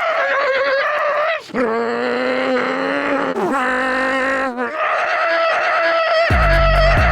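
A man's voice imitating a car engine: four long, wavering pitched notes with short breaks between them. Near the end a deep steady hum comes in underneath.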